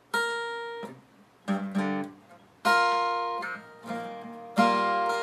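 Acoustic guitar strumming a few chords, each struck and left ringing as it fades before the next.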